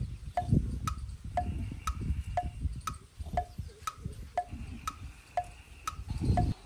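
Clock-like tick-tock, alternating a lower and a higher tick about twice a second, over a low rumbling noise that drops away near the end.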